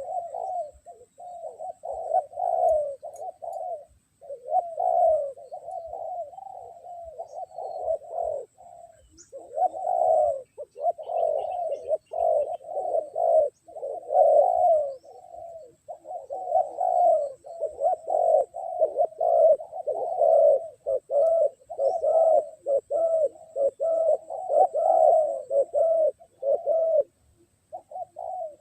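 Spotted doves cooing in long, almost unbroken runs of repeated low coo phrases, with a few short breaks. It is a cooing duel between a caged decoy dove and a wild dove that has come in to challenge it.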